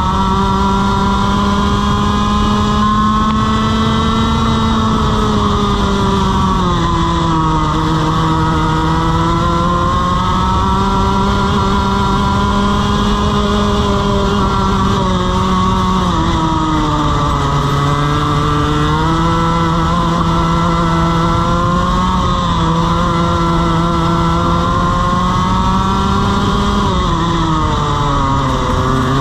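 Two-stroke TaG kart engine running at high revs on track. The pitch drops three times as the driver lifts off into corners and climbs again on the throttle, the last drop near the end being the deepest.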